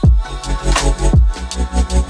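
Electronic background music with a beat: deep bass-drum hits that drop in pitch, about one a second, under quick high percussion and sustained synth notes.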